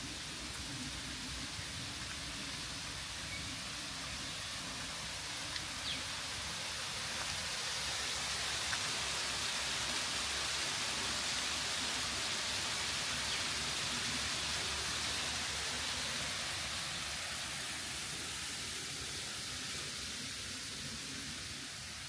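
Steady rushing hiss of falling water from a small waterfall. It grows louder toward the middle and eases off again near the end.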